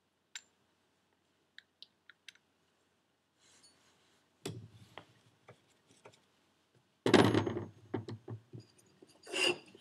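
Metal turbocharger parts being handled on a workbench: a few light clicks, then louder clinking and clattering about seven seconds in and again near the end.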